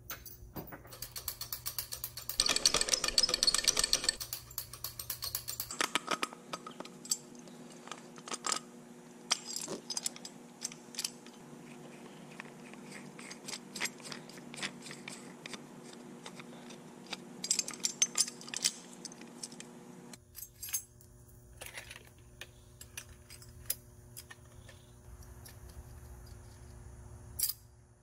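Steel lifting hardware (chain, shackle, bolt, washers and clamps) clinking and rattling as it is handled and hooked up. A dense spell of rapid metallic rattling comes about three seconds in, then scattered separate clicks and clanks.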